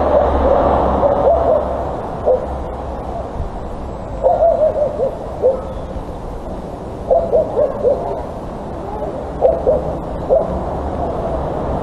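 A series of short hooting calls, coming in quick groups of several notes every couple of seconds, over a low steady hum.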